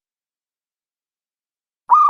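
Silence, then near the end a dove starts calling: a quick run of short, clipped notes at about the same pitch.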